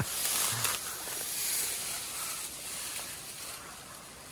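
Steady hissing rush of river water flowing.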